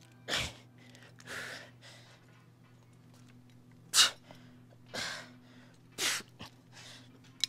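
A man's short, forceful breaths of exertion as he strains through cable fly reps near failure: five sharp breaths over about six seconds, the loudest about four seconds in.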